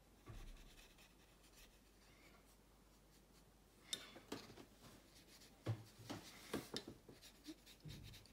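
Faint scratching of a round paintbrush on watercolour paper, with a run of short strokes in the second half.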